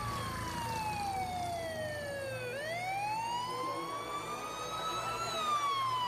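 Emergency vehicle siren wailing in slow sweeps. The pitch falls for about two and a half seconds, rises for nearly three, then starts falling again near the end.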